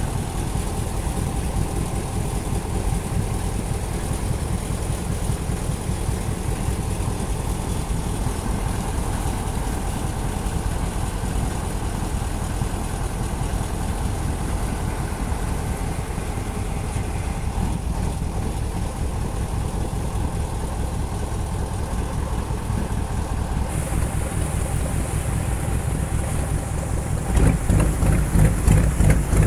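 Engine of the small passenger boat Strizh-7 running steadily under way, with water rushing along the hull. Near the end it gets louder and rougher, with a pulsing beat.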